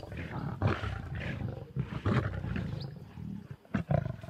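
Lions growling in a series of short bursts as they squabble over a kill.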